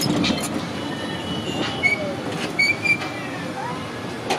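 Ride and street-traffic noise heard from inside a small three-wheeled taxi, a steady rumble with a few short high squeaks about two to three seconds in.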